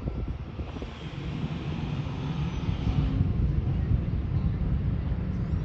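Wind buffeting the microphone with a heavy, fluttering low rumble, joined by a hiss for about two seconds starting a second in.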